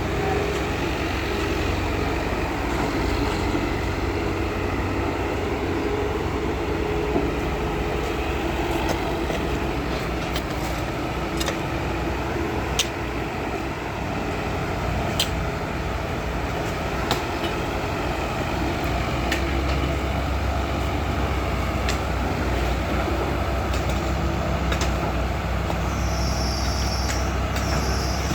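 Soil compactor roller running steadily, a heavy engine's low hum that grows stronger about two-thirds of the way through, with scattered sharp clicks. A high steady whine comes in near the end.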